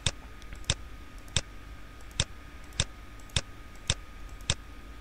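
Computer mouse button clicking eight times at an even pace, about one click every two-thirds of a second.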